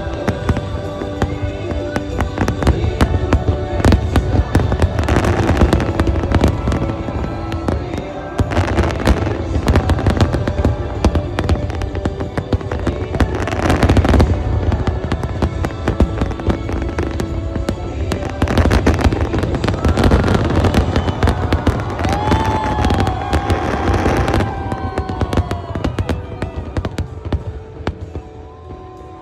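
Aerial fireworks going off in rapid volleys of bangs and crackling, over music with sustained tones. The bursts thin out and the sound drops near the end.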